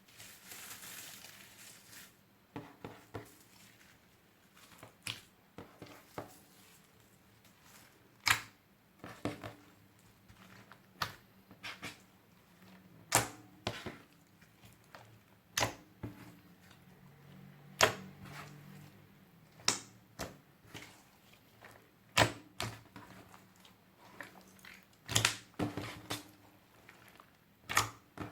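Slime being stretched, folded and pressed by hand, giving sharp little pops and clicks about every one to two seconds as air pockets burst.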